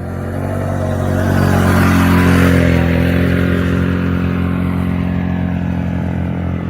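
Can-Am Renegade 1000 ATV's V-twin engine running under load, getting louder to a peak about two seconds in and then slowly easing off.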